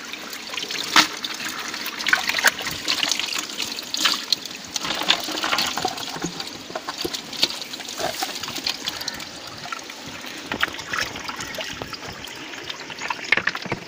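Water splashing and trickling in irregular bursts as hands scoop fish out of a shallow muddy pool and drop them, with dripping water, into a bucket and a bamboo basket.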